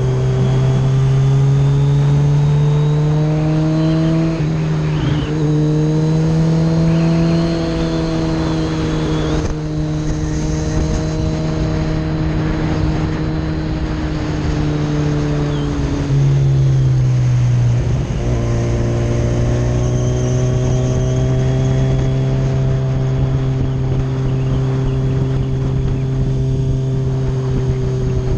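Kawasaki Z900RS's 948 cc inline-four engine running steadily while riding, over a steady rush of wind. Its note rises and falls gently with the throttle and settles to a lower pitch about two-thirds of the way through.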